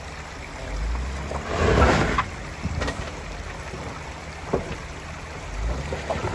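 Jeep Wrangler Rubicon JKU's engine pulling in two surges of throttle as it crawls up over creek rocks and a log, the first and loudest about 2 s in and another starting near the end, with a few sharp knocks of tyres and underbody on rock. A steady rush of creek water runs underneath.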